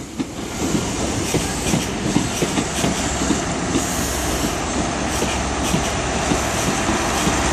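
InterCity 125 High Speed Train's Mark 3 coaches rolling past at low speed, wheels clicking over the rail joints. A low diesel hum grows louder toward the end as the Class 43 rear power car nears.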